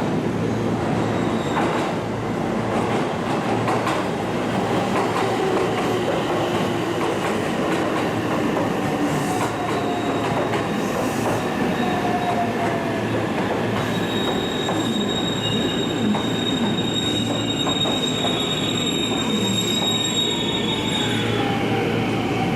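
JR West train running at a station platform, a steady rumble with whining tones that fall in pitch as it slows. About fourteen seconds in, a steady high-pitched squeal joins and holds to the end.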